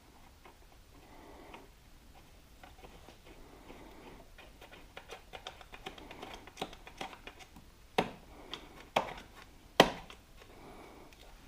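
Hand work with tools and parts: scattered light clicks and taps, then three sharp knocks about a second apart near the end.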